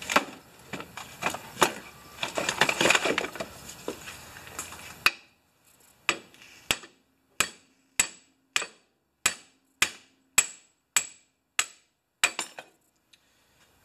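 Hammer-on-hammer strikes: a steel hammer hits a second hammer whose head rests on a worn, loose rubber lower control arm bushing in a Mercedes W123 control arm, driving the bushing out. First come a few seconds of rustling with a few knocks. Then about a dozen sharp metallic strikes follow, a little under two a second, each ringing briefly. The bushing is loose enough to hammer out rather than press out.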